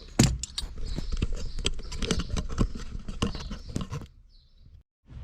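Hands handling parts and tools at close range: rapid, irregular clicks, taps and scratchy rustling for about four seconds, then stopping.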